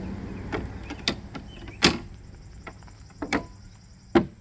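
Folding boat swim ladder being swung up and stowed on the stern: a handful of sharp clanks and clicks as the sections fold and latch, the loudest about two seconds in and again near the end.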